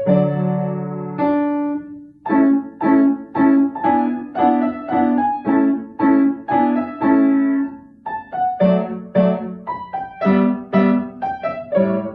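Kawai upright piano being played: a run of short detached notes and chords, about two a second, with brief breaks about two seconds in and near eight seconds.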